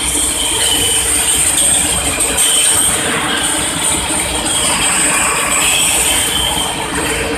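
Loud, steady din of steel rolling mill machinery running: motor-driven roller table and mill equipment clattering and humming, with a steady high whine over it.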